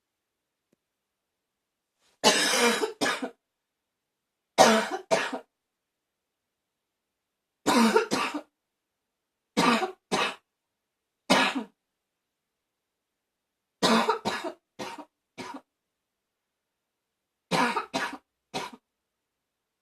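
A person's barking cough, coming in about seven short fits of one to four harsh coughs each, a second or two apart.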